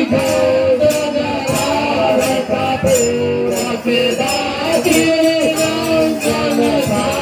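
Music: a voice singing a gliding melody over a steady jingling percussion beat like a tambourine.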